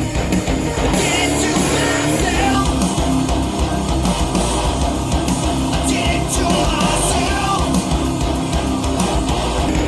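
Rock song with singing over guitars and drums, played back through hi-fi bookshelf speakers.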